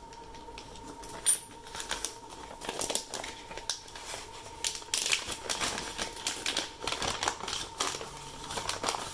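Clear plastic zip-lock bag being pried open and handled: irregular crinkling and crackling of thin plastic, with a sharp click about a second in.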